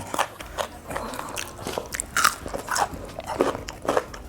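Close crunching and chewing of crispy fried chicken: a string of irregular crunchy bites.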